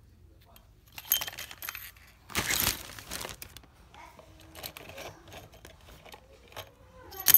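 Clear plastic zip-top bag crinkling and rustling in several bursts as it is handled, with metal staple strips and a plastic stapler clicking and clinking against each other inside it; a sharp click just at the end.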